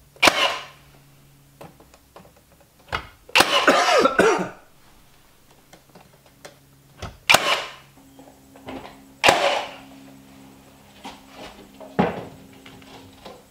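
Cordless nail gun firing nails into a wall, a sharp snap every few seconds, with a longer, rougher burst of noise about three and a half seconds in and a faint low hum between the shots.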